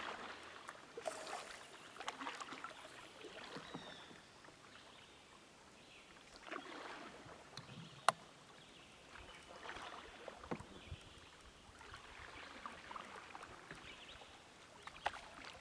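Soft splashes and drips of a kayak paddle in calm water, faint and irregular, with one sharp knock about eight seconds in.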